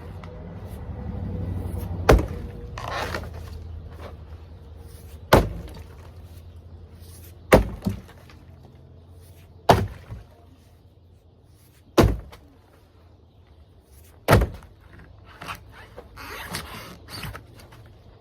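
Six heavy blows about two seconds apart as a hot tub is broken apart, each a sharp crack with a short rattle of loose pieces after some of them. Near the end there is a brief rustling clatter of debris.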